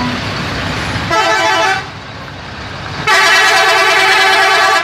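Telolet multi-tone musical horn of a Haryanto bus sounding twice: a short blast about a second in, then a longer, louder blast from about three seconds in that cuts off sharply. Traffic noise fills the gaps.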